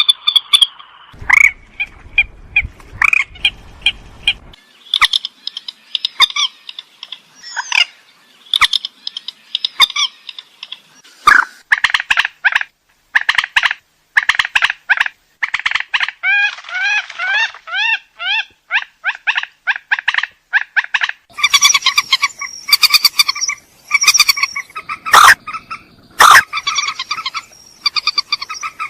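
Rails (burung mandar) calling: loud, harsh call notes repeated in rapid series, with a run of quick rising-and-falling notes around the middle and denser calling near the end. A low rumble sits under the calls in the first few seconds.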